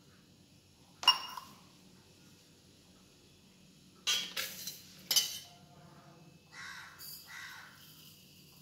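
Stainless steel kitchen vessels and a spoon clinking: a sharp ringing clink about a second in, two more around four and five seconds, then softer scraping of a spoon against a steel tumbler near the end.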